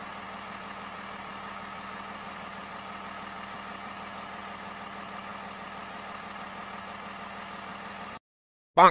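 Car engine running steadily at an even idle-like pitch with no revving, cutting off about eight seconds in. A short, loud rising sweep follows near the end.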